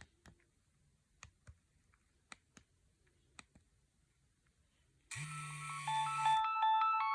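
Nokia 6610 keypad clicking about eight times, mostly in pairs. About five seconds in, a polyphonic ringtone starts: a held electronic chord with a low bass under a melody of short stepped notes.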